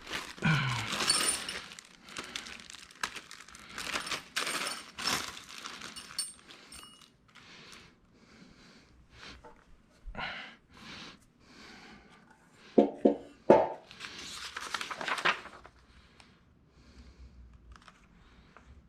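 Packaging being rustled and torn while metal stand parts are handled: repeated crinkling and tearing swishes mixed with knocks, scrapes and a few clinks.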